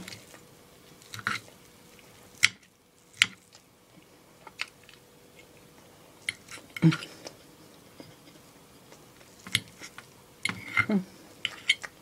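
A person chewing food close to the microphone: irregular wet mouth clicks and smacks every second or so, with pauses between bites.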